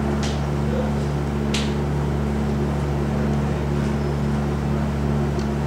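A steady machine-like hum made of several fixed low tones, with two short sharp ticks about a quarter second and a second and a half in.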